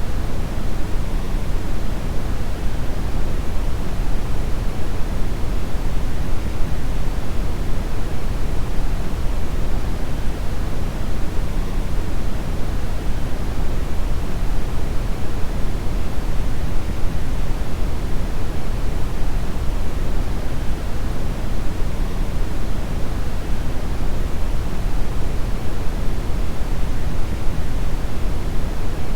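Brown noise: a steady, unbroken hiss-like rumble, heaviest in the deep bass and thinning toward the treble.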